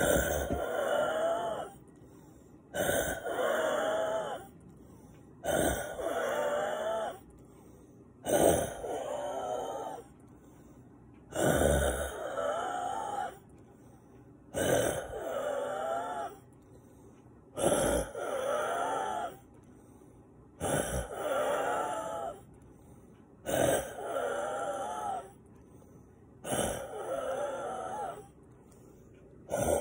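A man's labored breathing as he gasps for air, one wheezing breath about every three seconds, each with a wavering pitch. His sinuses and lungs are congested with mucus.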